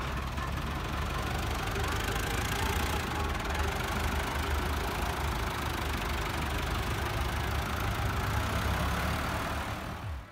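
Euro Ford 5880 tractor's 85 hp four-cylinder Tumosan diesel engine running steadily.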